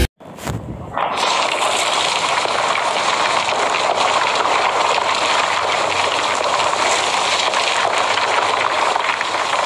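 A steady rushing noise without any tone or rhythm, starting about a second in after a short quieter sound, with the character of running water or rain.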